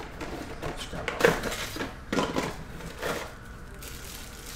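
Small cardboard box being handled and opened by hand: about four short scuffing, rustling noises roughly a second apart, quieter near the end.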